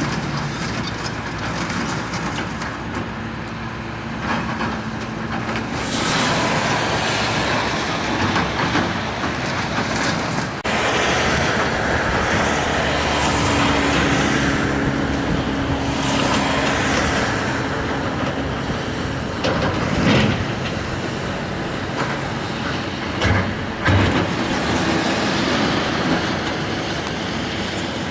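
Heavy Caterpillar demolition machinery working scrap: a diesel engine running and revving under load, with clanking and a few sharp metal knocks as scrap is hauled and piled, loudest near the end.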